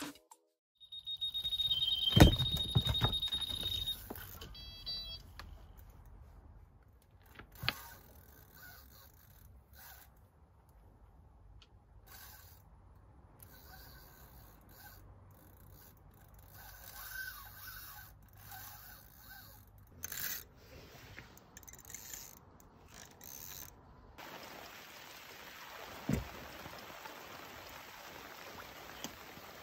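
Electronic carp bite alarm sounding one continuous high beep for about three seconds, briefly dropping in pitch, the signal of a fish running with the line; a loud thump comes about two seconds in and a few quick beeps follow. After that there are only faint rustles, then a steady hiss.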